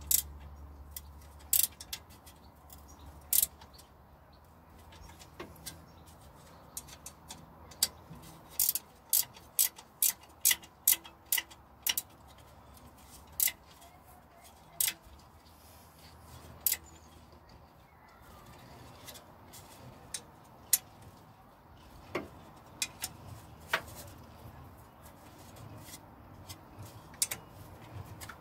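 Sharp clicks and taps from hand work fitting the engine fan behind the radiator, in an irregular series with a quicker run of about two a second in the middle.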